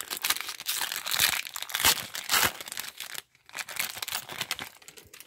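Foil wrapper of a baseball card pack being torn open and crinkled by hand, a dense crackling that pauses briefly about three seconds in before going on.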